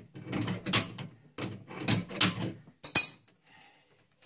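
Hands and a wrench working a compression nut loose on a toilet's shutoff valve: metal fittings rattling and scraping in short bursts, with one sharp metallic click about three seconds in.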